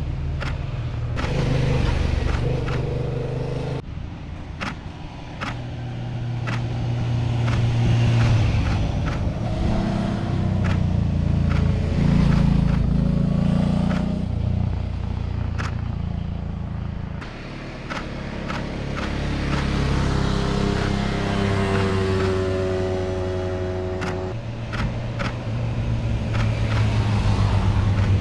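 A string of cars and motorcycles passing through a road curve one after another, each engine swelling and fading as it goes by. About twenty seconds in, one engine rises in pitch as it accelerates. Short sharp clicks come through at intervals.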